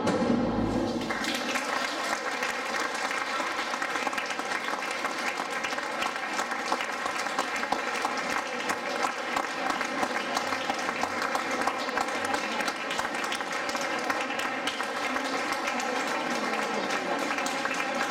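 Audience applauding with dense, steady clapping in a large hall, starting as a folk dance tune with fiddle ends about a second in.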